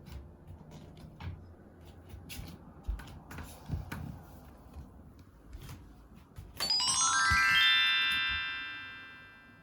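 A bright chime effect: a quick upward run of bell-like notes about two-thirds of the way in, ringing on and fading away. Before it, only faint room noise with a few small clicks.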